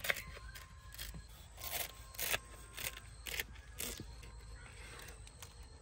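Knife cutting down through crisp baked kunafa, the shredded kataifi pastry crunching in a run of short crackles over the first four seconds, then going quieter.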